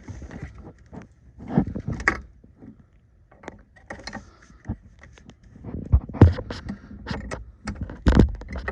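Wrench working back and forth on the nut of a seized quick-disconnect air line fitting: irregular metallic clicks and knocks, the loudest about six seconds in and near the end.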